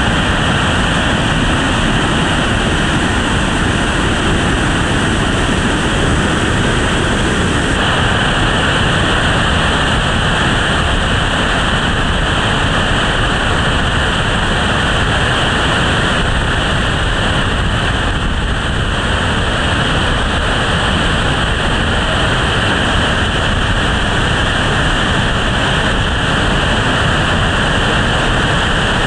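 Whitewater rapids rushing loudly and steadily over boulders, with a slight shift in tone about eight seconds in.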